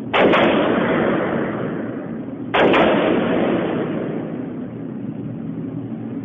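Two AR-15 rifle shots about two and a half seconds apart, each with a long fading echo, over a steady low hum.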